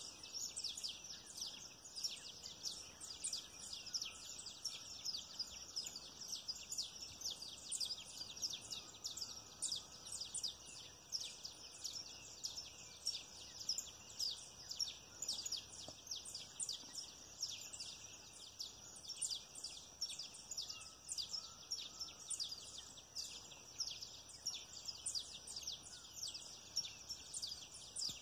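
Evening outdoor chorus of high, rapid chirping and a steady chirring, of small wild creatures such as insects and birds, running on without a break. The grazing tapirs themselves make no sound that can be picked out.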